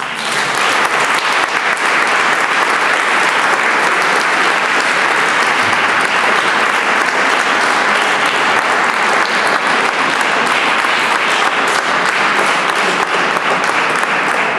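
Audience applauding, breaking out all at once and holding steady as a dense patter of many hands clapping.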